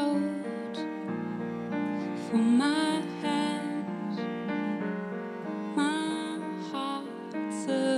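Live song: a woman singing slow phrases over chords on a Yamaha digital piano, with a cello bowing long low notes underneath.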